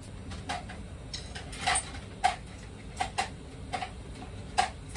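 A series of light, sharp clicks or taps, about seven or eight spaced irregularly over a few seconds.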